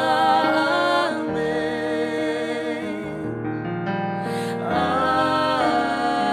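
Congregational worship song: singers holding long, drawn-out "Amen" notes over piano or keyboard chords.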